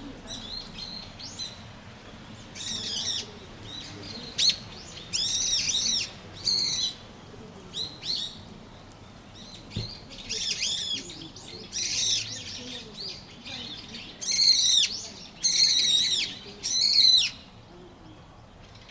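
A bird calling repeatedly: about a dozen loud, high calls, each a short note that rises and falls, coming in clusters with pauses between.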